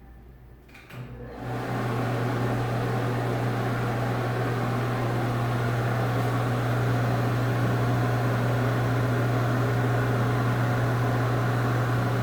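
Dirty Cook exhaust fan switching on with a couple of clicks and coming up to full speed fast, within about a second, then running steadily with a strong low hum and air noise.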